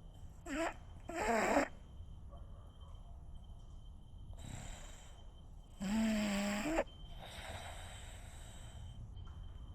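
French bulldog snoring in its sleep: two rasping snores close together in the first second or two, a fainter breath around four and a half seconds, then a loud snore with a held pitch around six seconds in.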